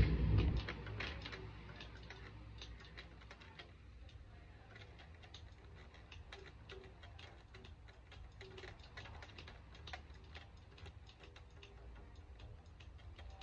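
Amplified electric guitar dies away in the first second. What follows is the faint, dry sound of the guitar's bare strings being picked without the amplifier: quick pick clicks and soft short plucked notes over a steady low hum.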